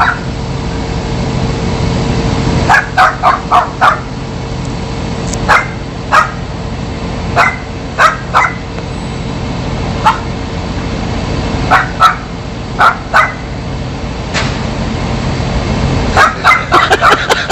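A dog barking repeatedly, in single barks and quick runs of two to four, over a steady low hum.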